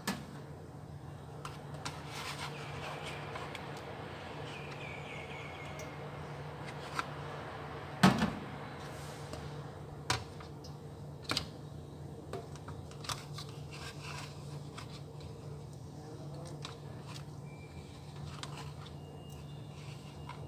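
Plastic molds being set down and shifted in an aluminium steamer pot: scattered light clicks and knocks, the loudest about eight seconds in, over a steady low hum.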